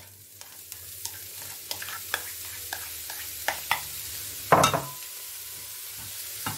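Sliced leeks tipped into a hot oiled non-stick pan and stirred with a spatula: a steady sizzle with scattered clicks and scrapes of the spatula against the pan, and one louder knock about four and a half seconds in.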